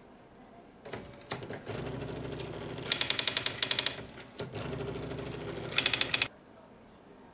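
Brother Electra 60 electric typewriter running under computer control: its motor hums while the typebars strike the paper in two quick runs of about ten strokes a second, then the machine cuts off suddenly.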